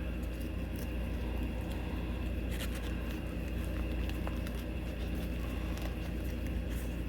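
Steady low background hum with a few faint, light clicks from the opened ribbon tin and its spool being handled.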